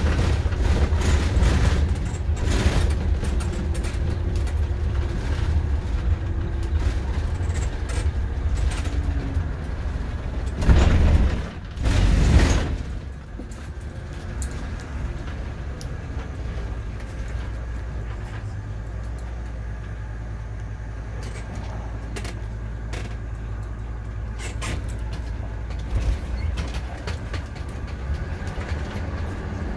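Motorhome driving on a rough, bumpy road: a steady engine and road rumble with contents rattling, and two heavy jolts a little before halfway. It then settles into a smoother, quieter run.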